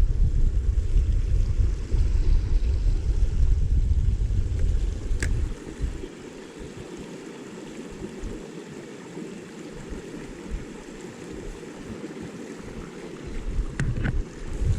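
Small stream running over stones with a steady rushing. For about the first six seconds a heavy low rumble of wind buffeting the microphone lies over it, then it dies away; a couple of faint clicks come later.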